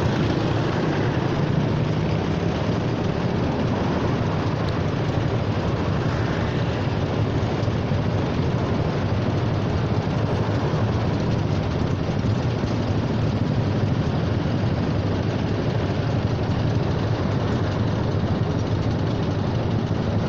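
Honda Forza 300 scooter's single-cylinder engine idling through a baffled aftermarket exhaust, under the steady hum of idling traffic around it.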